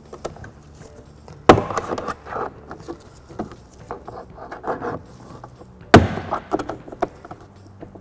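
Plastic door trim being pried loose with a plastic trim tool: two sharp snaps, about a second and a half in and again about six seconds in, as the retaining clips let go, with smaller clicks and plastic rustling between.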